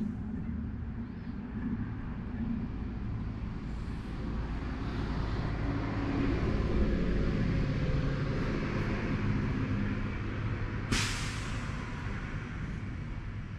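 A road vehicle's engine rumbling as it passes, growing louder through the middle and then easing off, with a sudden sharp hiss about eleven seconds in that fades over a second.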